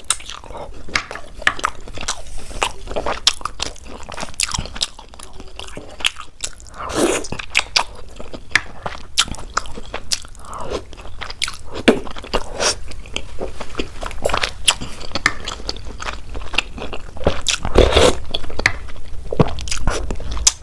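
A person chewing and biting Indian sweets close to the microphone: a steady run of short mouth clicks and smacks.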